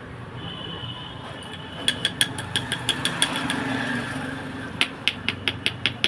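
Quick, light hammer taps on metal with a bright ring, in two runs of strokes about four or five a second: the first starts about two seconds in, the second near the end, over a steady low hum.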